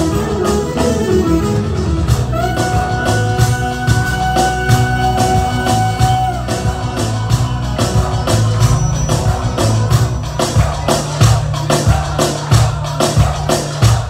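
Live çiftetel dance music: a clarinet plays an ornamented melody and holds one long note a couple of seconds in, over a quick steady drum beat and bass.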